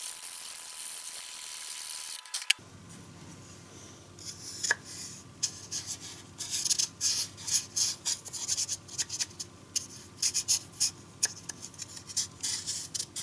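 Hand sanding of a wooden form: sandpaper rubbed back and forth over the wood in short, irregular strokes, a few a second. A steady hiss comes first and cuts off abruptly about two and a half seconds in.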